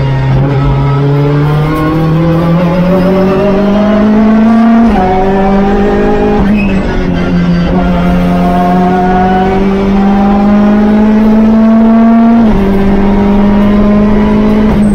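Hyundai Veloster N TCR race car's turbocharged 2.0-litre four-cylinder engine, heard from inside the cabin, pulling hard under acceleration. Its pitch climbs steadily and falls sharply at an upshift about five seconds in, climbs again, then drops at a second upshift about twelve seconds in.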